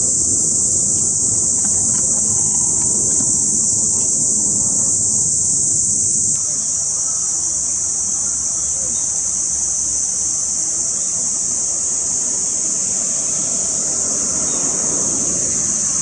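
Cicadas in chorus: a continuous, steady high-pitched drone, with a low background rumble underneath. The mix eases slightly about six seconds in, where the low rumble drops.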